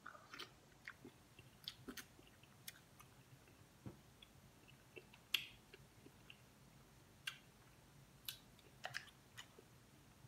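Faint mouth sounds of a person eating seafood: wet chewing and smacking with scattered sharp clicks, the loudest a little past halfway through.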